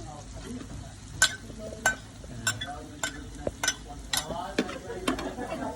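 Eels frying in a pan with a steady sizzle, while a utensil knocks and scrapes against the pan again and again as they are stirred.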